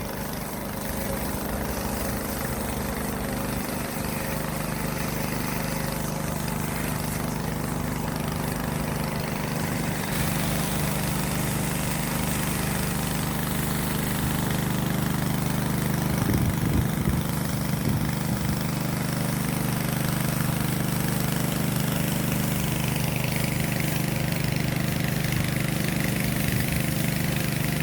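A motor running at a steady drone, with a low, even hum.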